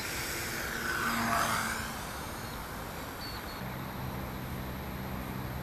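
Propeller of a model glider's nose-mounted DT750 brushless outrunner motor whining as the plane is hand-launched and flies off. The whine is loudest about a second in, then drops in pitch and fades, leaving a fainter steady hum.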